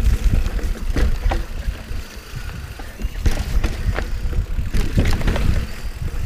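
Mountain bike descending a rough dirt trail, heard from a chest-mounted camera: low, uneven wind rumble on the microphone and tyre noise, with frequent sharp clacks and rattles from the bike jolting over roots and bumps.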